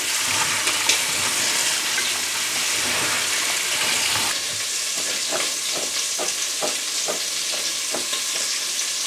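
Diced pork belly sizzling as it renders in a pot, a steady frying hiss. About four seconds in the sound thins, and scattered crackles and pops from the spitting fat come through.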